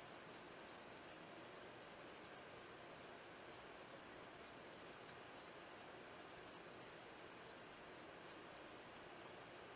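Faint, quick scratchy rubbing strokes, several a second, coming in runs of a second or more with pauses between: old dried thermal paste being rubbed and scratched off a small graphics-card heatsink.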